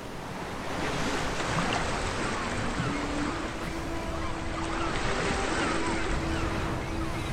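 Ocean surf: waves breaking and washing, fading in over the first second and then steady.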